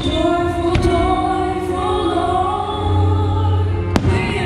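Music with a singing voice plays over exploding aerial firework shells. There is a sharp bang just under a second in, and a louder one about four seconds in.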